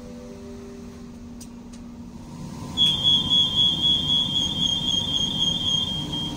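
A high, steady electronic warning tone switches on abruptly about three seconds in and keeps sounding, over the low hum of the carriage: the door-closing alarm of a CR200J Fuxing train standing open at the station. Just before it, the last note of a soft descending chime fades out.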